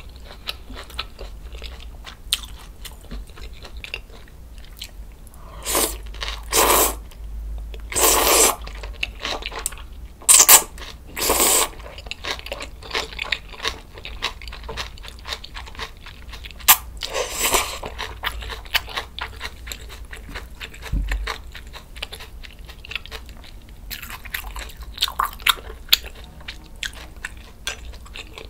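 Close-miked eating of thick kalguksu noodles: a run of loud slurps, one more past the middle and softer ones near the end, with wet chewing and small mouth clicks in between.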